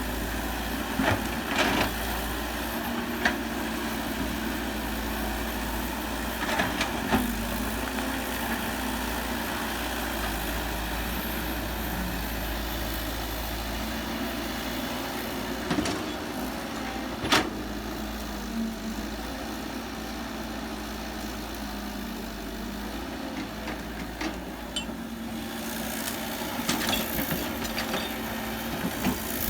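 Heavy earthmoving machinery running steadily with a low diesel drone, broken by several sharp knocks or clanks, the loudest about two-thirds of the way through.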